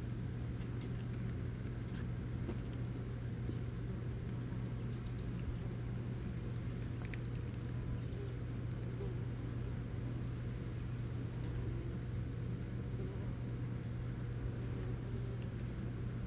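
A steady low hum with a rumbling noise beneath it, unchanging throughout, and a few faint ticks.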